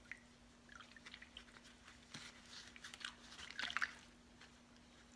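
Water in a plastic tub sloshing and dripping as hands push a wooden letter down through a floating paint film during hydro dipping: a run of small wet splashes and squishes, loudest about three and a half seconds in.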